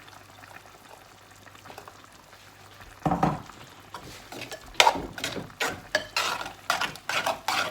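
A spoon stirring a thick mash of pumpkin and coconut paste in a cooking pan. After a few quiet seconds with a faint low hiss, the spoon scrapes and knocks against the pan about three seconds in, then repeatedly and faster toward the end.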